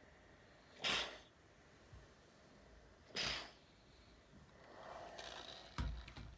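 Steam iron hissing in two short bursts of steam as it is pressed onto a towel, then a dull thud near the end as the iron is set down.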